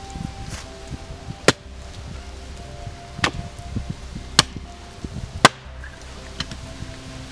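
Four sharp chopping strikes on wood, about a second apart, the last one the loudest.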